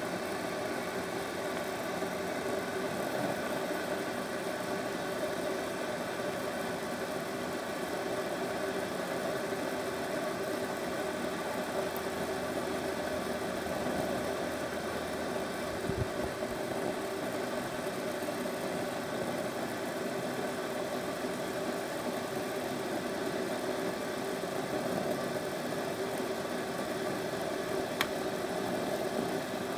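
Steady noise of a litre of water in a lidded aluminium pot heating on a soda-can alcohol groove stove, with bubbles forming loudly on the bottom of the pan: the water is nearing a rolling boil. A soft thump about halfway through and a faint click near the end.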